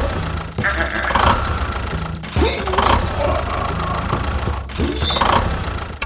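Low tractor-engine rumble in short stretches that cut off suddenly about every one and a half seconds, with brief voice-like exclamations and squeaky pitch glides over it.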